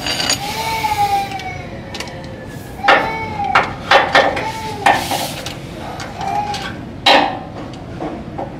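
Sharp metal clanks and knocks of hand tools, about five spread over several seconds, as a cap-type oil filter wrench is worked onto a stuck oil filter. A cat meows several times in between.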